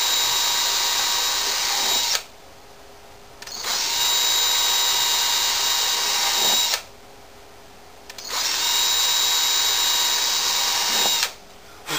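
Small power drill running in three bursts of about three seconds each, a steady whine, drilling the string holes through a ukulele's top.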